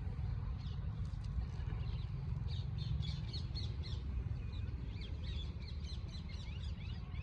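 Small birds chirping and calling in quick, repeated short notes, over a steady low rumble.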